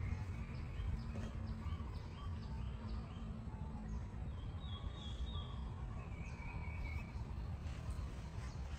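Outdoor background noise: a steady low rumble with a run of short, high chirps and two longer held high whistled notes about halfway through.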